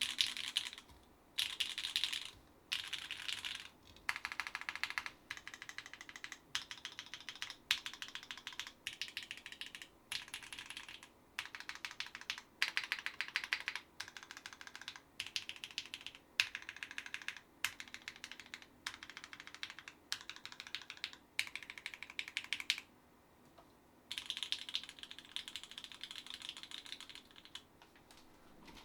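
Typing on a SINGAKBD Kohaku R2 custom mechanical keyboard with an aluminium plate, Gateron Fades switches lubed with 205g0, and GMK doubleshot keycaps. Rapid keystrokes come in runs of about a second, with short pauses between them and one longer pause about three-quarters of the way through.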